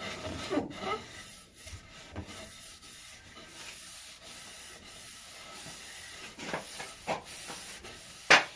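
Steady rubbing on the wooden axe handle as a coat of finish is worked in, with a couple of light knocks and one sharp click near the end.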